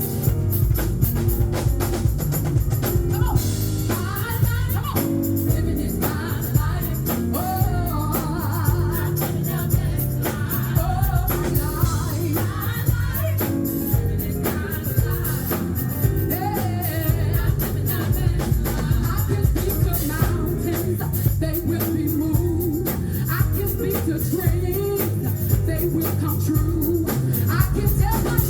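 A woman singing a gospel song with a live band, the drum kit keeping a steady beat. Her voice comes in a few seconds in over the band.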